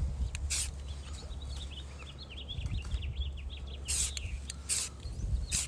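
Small birds chirping steadily in the background, with a few short hissing bursts: one near the start and three in the last couple of seconds.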